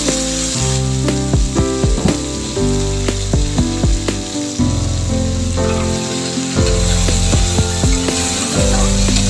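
Water spinach and onion sizzling as they fry in oil in a wok, with a spatula scraping and stirring through the greens near the end, over background music.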